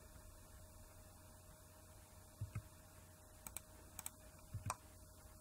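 A handful of faint computer keyboard key clicks, coming in quick pairs from about halfway in, over near-silent room tone with a faint steady hum.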